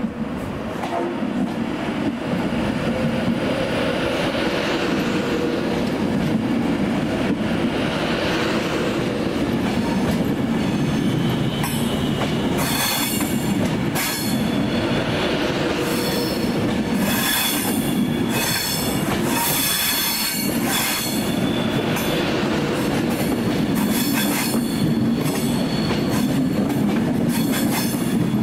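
A train running through the station with a steady rumble. From about the middle, the wheels click repeatedly over rail joints and there is a faint high squeal from the wheels.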